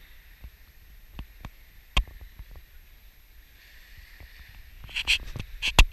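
Scattered short clicks and knocks over a faint hiss, with one sharp knock about two seconds in and a cluster of louder ones near the end.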